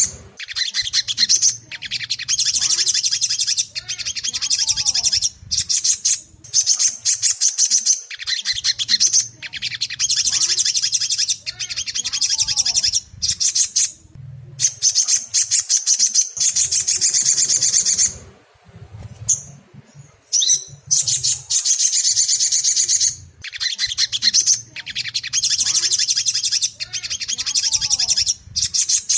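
Sogon (ruby-cheeked sunbird) singing: fast, high twittering phrases of a second or two, broken by short pauses, with a longer lull about two-thirds of the way through. A faint low hum runs underneath.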